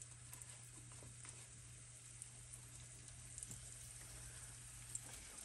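Faint sizzle of cornmeal-breaded white bass fillets frying in shallow vegetable oil in a skillet, over a steady low hum, with a few small ticks.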